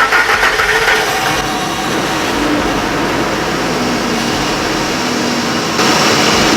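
A 2003 Ford F-150 engine starting and running: loud and uneven as it catches, then settling to a steady run, with a brief rise near the end. It runs because the fuel pump is getting current again now that the broken wire at the fuel pump safety switch has been repaired.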